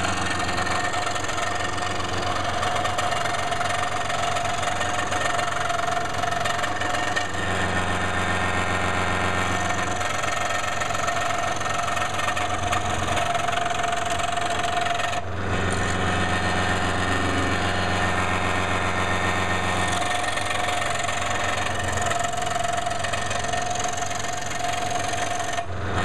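Power saw running steadily while cutting curved lines through a wooden puzzle blank, a constant machine hum with a steady ringing tone. The low hum shifts in strength a few times as the cut goes on, with a brief dip about halfway through.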